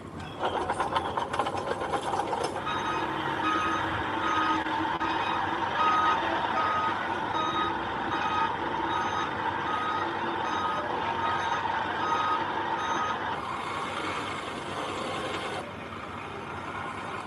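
Reverse alarm of a heavy machine beeping at a regular pace over its running diesel engine. The beeping stops about three-quarters of the way through while the engine keeps running.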